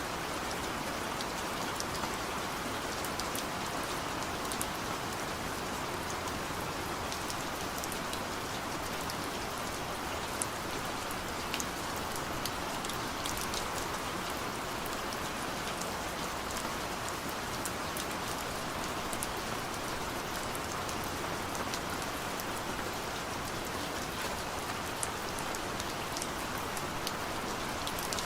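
Steady rain falling, a constant hiss with many individual drops pattering sharply on a surface.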